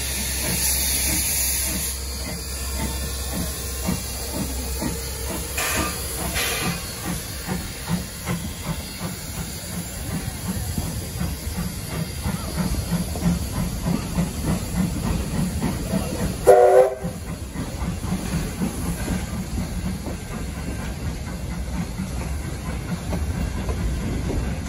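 Steam locomotive T251 working at low speed, with a steady hiss of steam and a fast, rhythmic exhaust beat. There are a couple of brief clanks about six seconds in, and a single short whistle blast about two-thirds of the way through.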